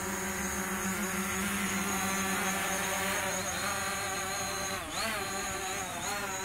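DJI Mavic Pro quadcopter's propellers buzzing in flight, a steady whine that dips in pitch and recovers twice near the end.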